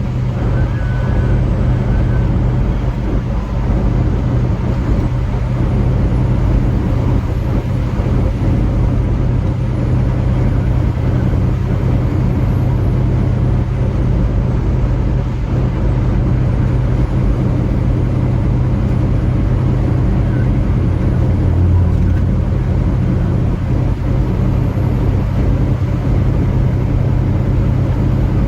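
Semi truck running at road speed, heard from inside the cab: a steady low engine drone under an even wash of road noise.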